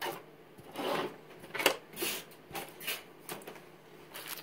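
Sleeved power-supply cables and their plastic connectors being shifted about on a tabletop: a string of short, irregular rustles and light clacks.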